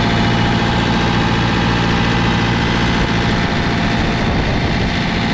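Diesel engine of a JCB 3CX loader backhoe idling steadily.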